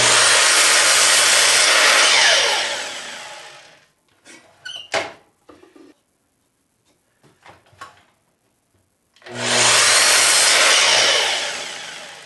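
Sliding compound miter saw cutting small hardwood strips twice. Each time the motor starts at full speed, runs through the cut for about two seconds, then is released and winds down with a falling whine. A few light clicks and knocks come between the cuts as the wood is repositioned.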